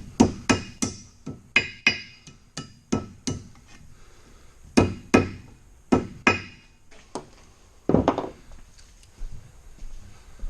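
Hammer blows on steel at the John Deere 466 round baler's hydraulic pickup lift cylinder mount, in quick runs of two or three strikes, each with a short metallic ring.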